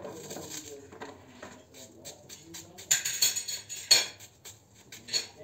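A small kitchen knife clicking and scraping as a vegetable is cut and peeled by hand over a plastic bowl. About three seconds in there is a louder second of dense scraping and crackling.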